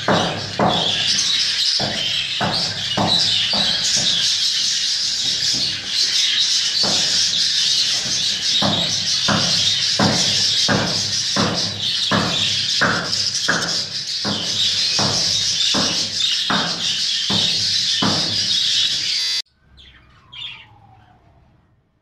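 Many budgerigars chattering and warbling together in a dense, continuous mass of chirps, with a regular low pulsing about twice a second beneath. The chatter cuts off suddenly near the end, leaving a few faint whistled calls that slide down and then up.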